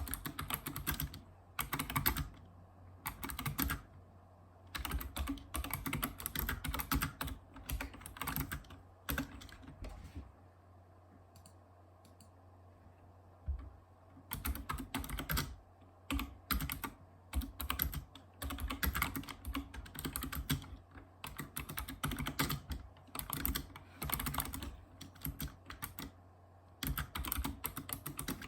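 Typing on a Razer Ornata Chroma mecha-membrane keyboard: runs of quick key clicks and clacks. Typing stops for about four seconds in the middle, then picks up again.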